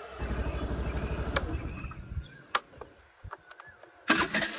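Suzuki Access 125 fuel-injected scooter's single-cylinder engine running, then switched off about two seconds in and dying away, with a few sharp clicks. Near the end it is started again and runs, after its crankshaft position sensor fault code has been cleared.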